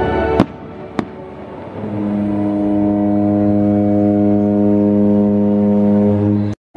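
Show music breaks off with a sharp firework bang, and a second bang follows about half a second later. A steady low droning tone with many overtones then builds and holds, and cuts off suddenly near the end.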